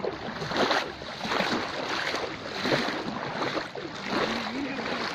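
Floodwater splashing and sloshing in a steady rhythm, about one swell every two-thirds of a second, from movement through the water.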